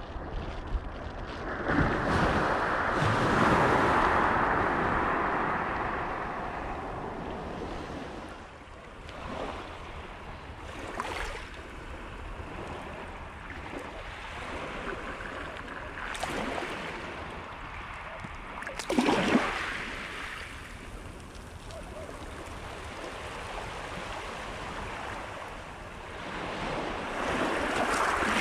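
Small sea waves breaking and washing on a shingle beach, coming in surges: a long wash about two seconds in, smaller ones through the middle, a sharper splash a little after halfway, and another wash near the end. A low wind rumble on the microphone runs underneath.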